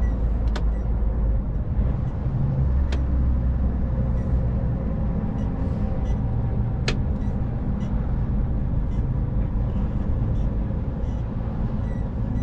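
Inside a lorry cab on the move: the diesel engine's steady low drone mixed with road noise, with a few sharp clicks.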